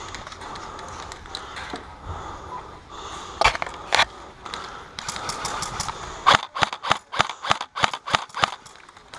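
Airsoft guns firing: two single shots between three and four seconds in, then a quick run of about a dozen shots from about six seconds in.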